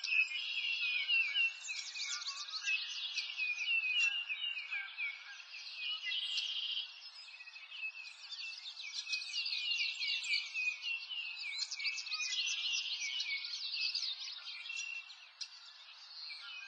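Birdsong from many birds at once: a dense, unbroken chorus of short overlapping chirps and trills.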